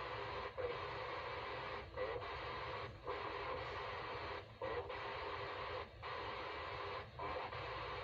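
UHF Satcom satellite signal on 257.150 MHz received in narrow FM on a Realistic PRO-2042 scanner: a continuous hissing, rasping signal from the scanner's speaker, broken by short drop-outs about every second or so.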